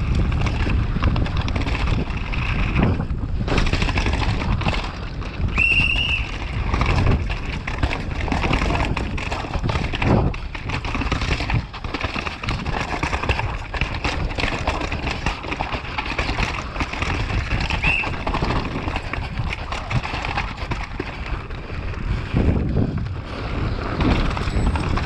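A downhill mountain bike running fast over a rough dirt race track. Tyres rush over the ground while the bike rattles and clatters over bumps and rocks, with wind buffeting the action camera's microphone. A few short high squeals stand out, around six seconds in and again near eighteen seconds.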